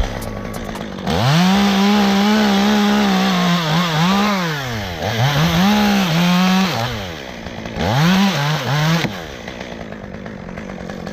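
Two-stroke chainsaw running at high revs while cutting wood. It comes up to speed about a second in, its pitch sags and recovers several times, and it drops off about nine seconds in, leaving a lower steady noise.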